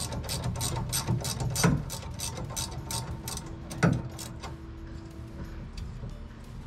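Ratcheting wrench clicking rapidly, about five clicks a second, as a nut is tightened on a rod linkage. Two louder metal knocks come about a second and a half in and again near four seconds, and the clicking thins out in the second half.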